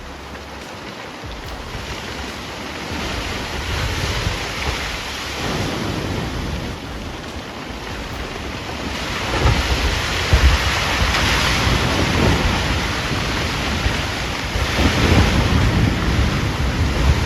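Storm wind buffeting the microphone over heavy seas crashing around a fishing vessel, the roar swelling in surges as big waves hit, loudest from about halfway through.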